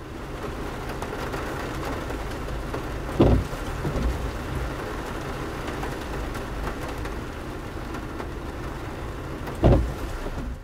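Steady rain falling, with two brief, low thumps, about three seconds in and again near the end.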